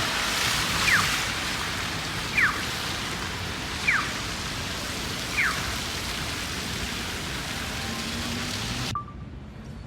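Steady hiss of wet snow or sleet falling, with a short falling chirp repeating about every one and a half seconds. The hiss cuts off suddenly near the end.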